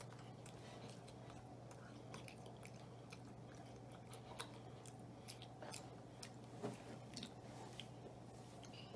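Faint chewing of a soft doughnut, with small scattered mouth clicks over a low steady hum.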